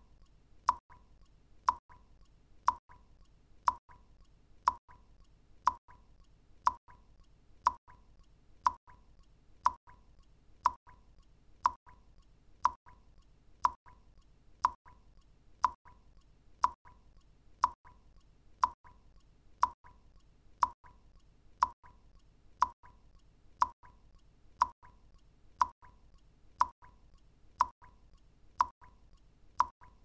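Water drops falling one at a time into water, each a sharp plop with a short ringing tone, at a steady, even rhythm of about one drop a second.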